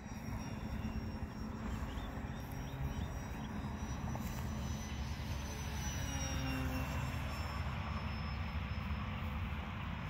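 Gusty wind rumbling on the microphone, with the faint high whine of the Durafly Tundra V2's electric motor and propeller as the plane flies overhead, its pitch slowly sliding down in the second half.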